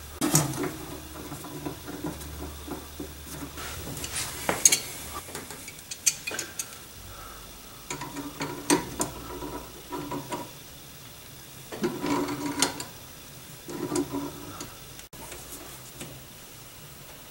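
Metal-on-metal clicks, scrapes and rubbing as a hydraulic brake light switch is screwed into a brake line distribution block and tightened with pliers. The clicks come in irregular clusters with short pauses between them.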